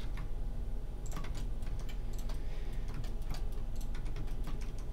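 Computer keyboard keys being pressed: scattered, irregular clicks over a steady low hum.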